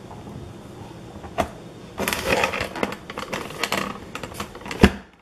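Red onion being diced in a press-style vegetable chopper: a click about a second and a half in, then about three seconds of crunching and crackling as the onion is pressed down through the grid blade, ending in a loud knock near the end as the lid bottoms out.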